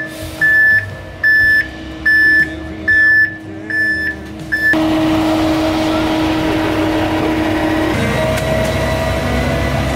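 Concrete mixer truck backing up, its reversing alarm beeping about once every 0.8 s. The beeping stops a little under halfway through, and the truck's diesel engine keeps running steadily and louder.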